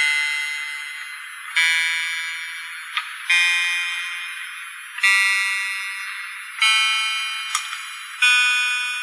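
Yamaha PortaSound portable electronic keyboard playing single notes one after another, six in all, a new note about every second and a half. Each note is a high-pitched tone that starts sharply and fades away, the pitch changing from note to note. A small click sounds twice between notes.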